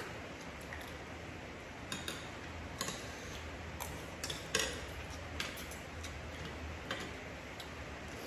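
Crab soup being eaten by hand and with a spoon: irregular sharp clicks and smacks scattered through, over a low steady hum.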